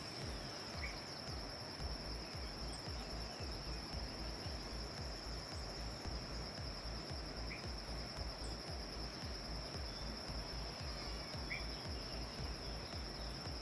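Insects trilling in a steady, high, unbroken tone, with three brief bird chirps.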